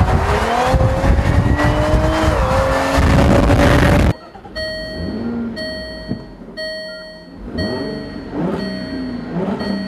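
Jaguar F-Type Coupe's engine running hard past on the track, its pitch climbing then holding, until it cuts off suddenly about four seconds in. Then the car's door-open warning chime beeps about once a second, while the supercharged six-cylinder engine is blipped up and down at a standstill.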